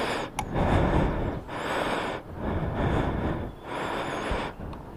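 Suzuki Bandit 600 motorcycle being ridden, its engine and the rush of riding rising and falling in swells about once a second.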